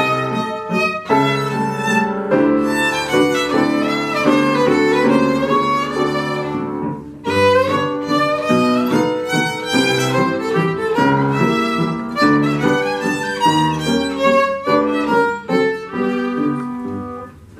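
Violin playing a mazurka melody with upright-piano accompaniment; the piece comes to its close just before the end.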